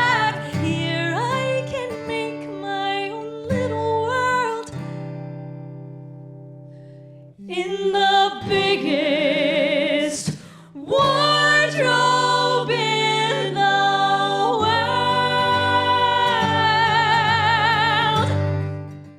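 A musical-theatre song sung over guitar accompaniment: sung phrases, a chord left to die away about five seconds in, then long held notes with vibrato, fading out near the end.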